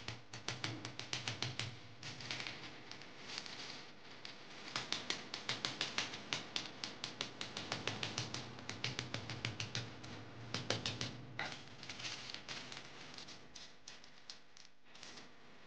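Wooden rolling pin rolled back and forth over butter sealed in parchment paper on a stone countertop, giving rapid clicking and tapping. The taps thin out near the end as the rolling stops.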